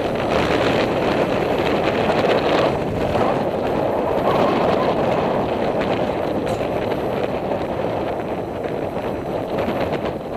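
Wind buffeting the camera's microphone, a steady rushing noise that swells and eases in strength.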